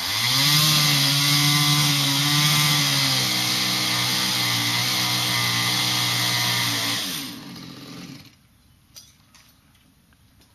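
Chainsaw revving up sharply to full throttle and held there while cutting, its pitch dipping slightly a few seconds in. It falls away and stops about eight seconds in, followed by a few faint knocks.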